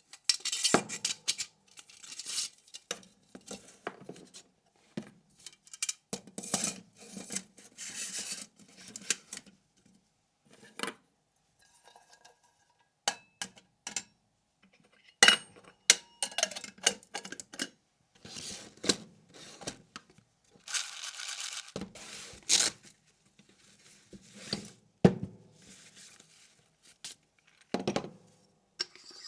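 Camping cookware and coffee gear being handled: irregular metal clinks, knocks and clatter with short rustling and scraping noises in between.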